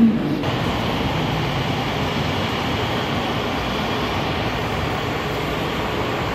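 LRT Jabodebek light-rail train at a station platform: a steady rumble and rushing noise that comes in about half a second in and holds level.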